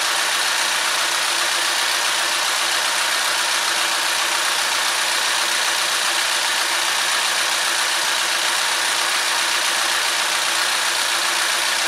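A 2012 Chevy Equinox's four-cylinder direct-injection Ecotec engine idling, an even, unchanging running noise with a faint steady hum.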